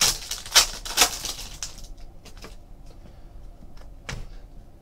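Foil trading-card pack wrapper being torn open and crinkled, with three sharp crackles in the first second. Quieter rustling of cards being handled follows, with a short tap a little after four seconds.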